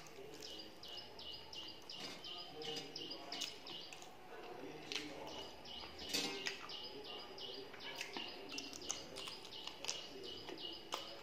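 A bird chirping over and over in the background, about three short chirps a second, stopping and starting again. Under it, close-up chewing and eating sounds from a meal of rice and chicken curry eaten by hand, with a few sharp mouth clicks.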